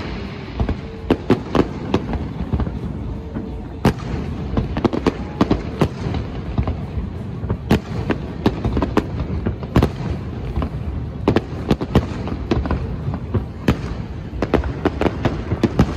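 Aerial fireworks bursting in rapid, irregular succession: a stream of sharp bangs and crackles over a continuous low rumble, with a few louder bangs standing out, about four, eight and ten seconds in.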